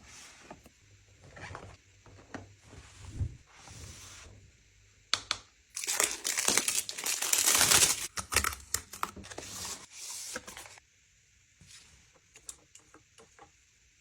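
Packaging being handled: crinkling and rustling in irregular bursts with scattered clicks, densest and loudest for about two seconds near the middle, then dying down to a few light taps.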